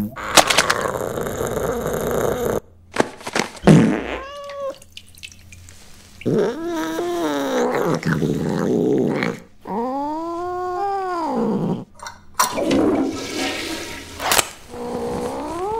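Comic film sound effects of a cat defecating: several drawn-out meows that rise and then fall in pitch, with noisy rushing bursts about half a second in and again about three-quarters of the way through.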